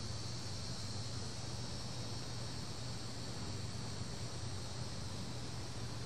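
Cicadas buzzing in a steady, unbroken chorus, with a constant low hum underneath.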